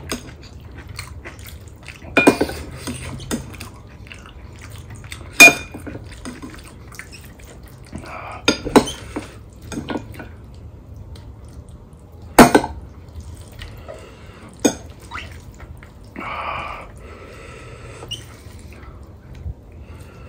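Steel ladle clinking against a glass bowl and steel plate, about five sharp ringing clinks a few seconds apart, with soft eating sounds between them.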